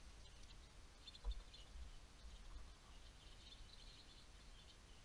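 Near silence with faint, scattered high chirps and twitters, and a soft low thump about a second in.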